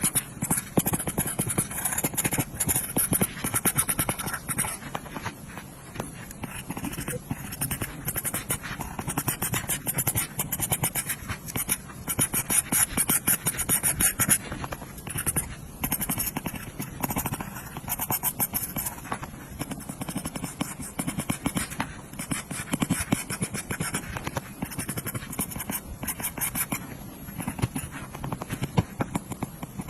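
Apple Pencil tip tapping and scratching on an iPad's glass screen in quick, dense strokes, full of short clicks.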